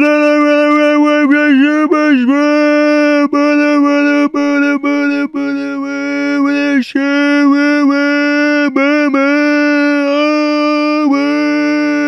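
Goofy meme scream: a voice holding one long, loud, steady high note, broken every second or so by short cut-offs and little dips in pitch.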